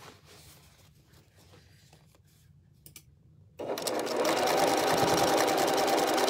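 After about three and a half seconds of near quiet with a few faint clicks, an electric sewing machine starts suddenly and runs at a steady, rapid stitch through layers of fabric.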